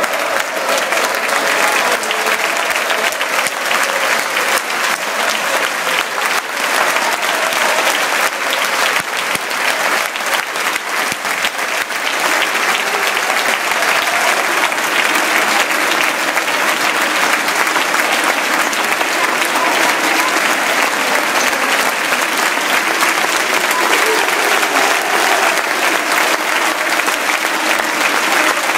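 Large football stadium crowd applauding steadily, a dense unbroken clatter of clapping with voices mixed in.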